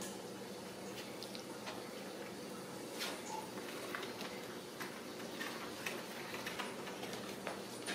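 Scattered light clicks, taps and scrabbles of Ragdoll kittens' paws and claws on corrugated-cardboard scratchers and a tile floor, over a steady low room hum.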